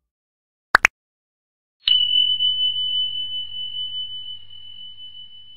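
Two quick mouse clicks, then a single high bell ding that rings on and slowly fades: a subscribe-button click-and-notification-bell sound effect.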